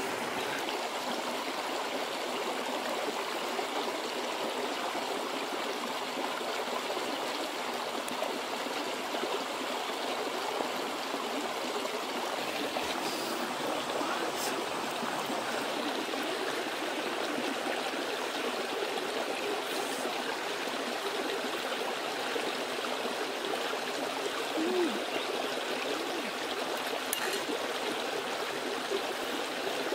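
Shallow stream running over rocks: a steady rush of water, with a few faint ticks.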